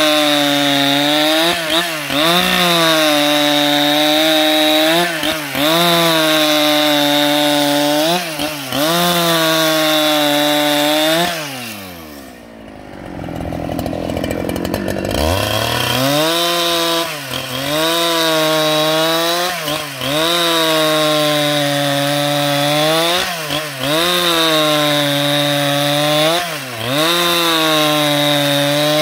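Husqvarna 395XP two-stroke chainsaw at full throttle, ripping a log lengthwise into a plank; the engine note dips every second or two as the chain bites into the wood. About twelve seconds in it drops to idle for a few seconds, then revs back up and resumes cutting.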